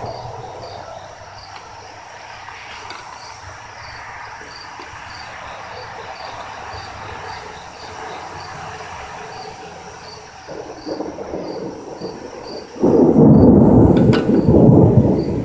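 Thunder: a low rumble builds about ten seconds in, then breaks into a loud rumble near the end. Beneath it are a steady hiss of road traffic and a regular pulse of crickets chirping.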